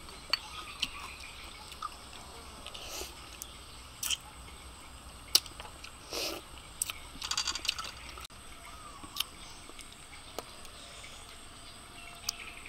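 Eating grilled cockles: scattered sharp clicks of the shells being handled and pried open, with a few short wet mouth sounds of chewing in between.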